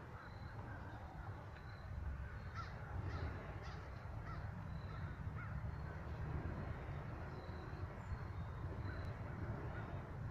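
A bird calls in a quick series of short calls a few seconds in, over a steady low rumble.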